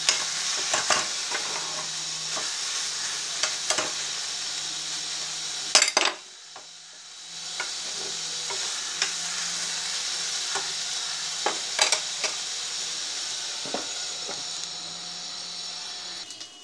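Mashed banana stem with spices frying in a pot, sizzling steadily, while a spatula scrapes and knocks against the pan every second or two. A loud clatter comes about six seconds in, the sizzle drops away for a moment, then resumes.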